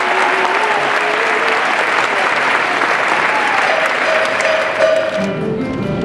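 Audience applauding, with a few drawn-out cheers over the clapping. About five seconds in, instrumental accompaniment music with a steady beat starts up.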